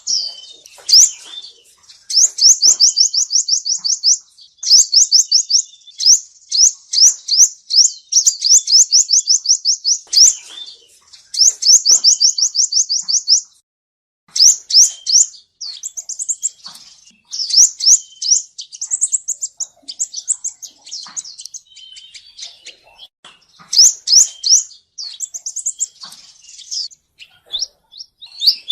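Male sunbird singing: rapid, high-pitched trills of quick repeated notes, each run lasting one to three seconds, with short gaps and a brief pause about halfway through.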